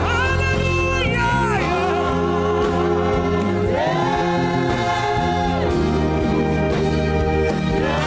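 Gospel worship music: a choir singing long held notes over sustained instrumental chords.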